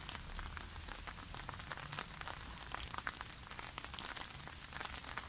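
Rain falling on an umbrella: a steady hiss of rain with irregular drops tapping on the fabric overhead.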